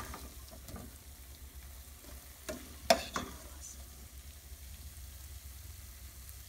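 Metal spoon scraping and clinking against a stainless steel cooking pot as cooked taro-root curry is scooped out and served onto a plate. A few sharp clinks stand out, the loudest about three seconds in, then it goes quieter.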